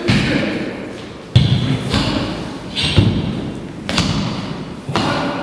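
Heavy footfalls of Xing Yi stepping punches landing on a hard floor: about six thuds roughly a second apart, each echoing briefly around a large hall.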